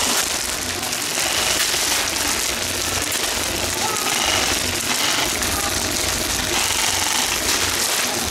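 Airsoft guns firing rapid automatic volleys, a dense stream of fast clicks with no break, with faint shouting underneath.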